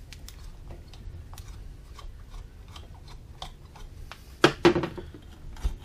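Steel screwdriver clicking and scraping against the metal end cap of a small brushed DC motor while undoing a through-bolt. There is a run of small irregular ticks, with two louder metal clacks about four and a half seconds in and another just before the end.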